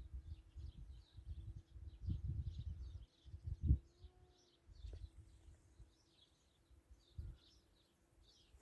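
Small birds chirping in short, irregular calls throughout, over gusts of wind buffeting the microphone that are heaviest in the first three seconds. A faint steady hum runs underneath.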